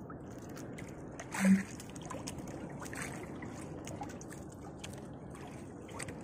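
Sea water sloshing and trickling against the hull of a small outrigger boat, with scattered drips and small clicks. One louder knock about a second and a half in.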